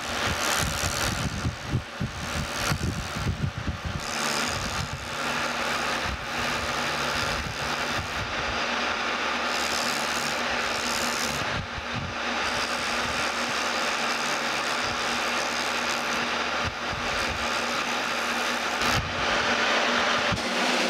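Rivett lathe running steadily, spinning a bare 8-inch Cushman chuck body, with a Scotch-Brite abrasive pad held against the turning steel to polish it: a steady rasping hiss over the lathe's low hum.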